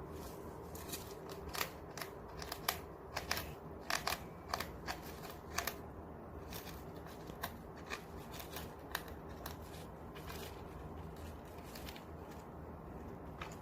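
A winter white dwarf hamster gnawing on a dried lotus seed pod: a run of sharp, irregular crackling clicks, densest in the first half and thinning out after about ten seconds, over a faint steady low hum.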